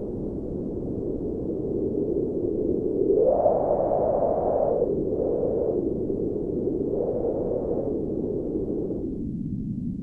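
Wind sound effect: a steady, low, dull rushing of wind noise that swells into a stronger gust about three seconds in, then eases back and thins out near the end.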